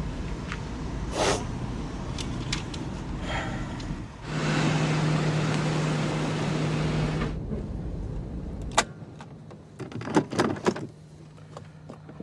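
Car sounds: a low running rumble, louder with a rush of noise about four to seven seconds in. The rumble stops with a sharp click about nine seconds in, followed by a few quick clicks and knocks about a second later.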